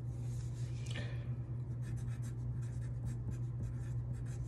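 Wooden pencil writing on paper, a run of many short strokes as a word is lettered, over a steady low hum.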